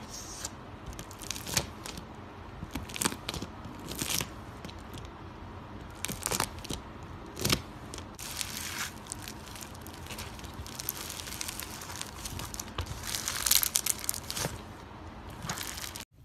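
Bead-filled slime crunching and crackling as a blade slices through it, in many sharp, irregular crackles that grow denser near the end and then stop abruptly.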